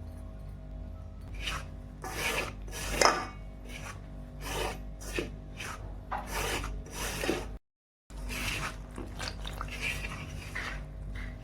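Repeated rough scraping or rubbing strokes, about one a second and uneven, over soft background music.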